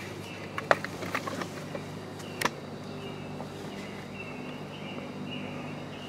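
A few sharp clicks and knocks in the first half, the loudest about two and a half seconds in, from the camera being handled and moved, over a steady low hum and faint, intermittent high chirping.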